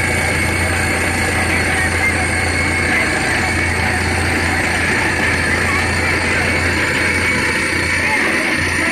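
Borewell drilling rig running steadily, its engine and air compressor driving the drill while compressed air blasts rock dust out of the bore in a continuous rushing noise.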